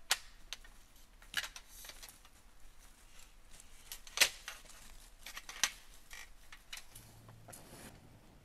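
Sharp metallic clicks and clacks from a jointed white metal pole being folded up by hand, with a handful of separate snaps; the loudest comes about four seconds in.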